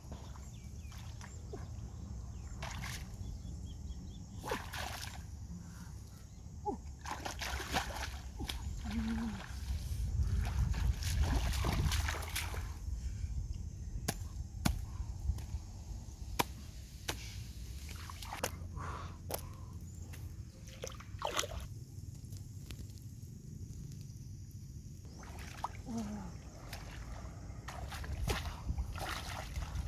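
Shallow muddy stream water sloshing and splashing as a person wades and gropes with her hands in it, with many short splashes and clicks over a steady low rumble.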